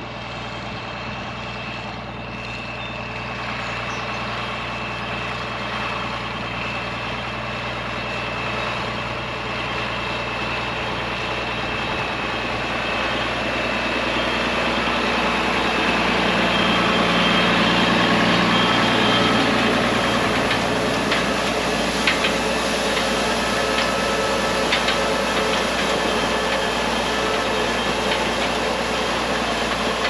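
Farmall 1206 tractor's turbocharged six-cylinder diesel engine running steadily while pulling a hay rake. It grows louder over the first half as the tractor comes close, with a few light clicks in the second half.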